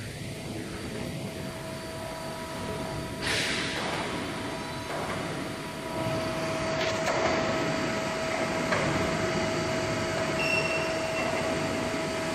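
Steady hum with a held whine from an ACCURL Euro Pro B CNC hydraulic press brake's pump and motor running. A burst of hiss comes about three seconds in, and the hum gets louder from about six seconds in.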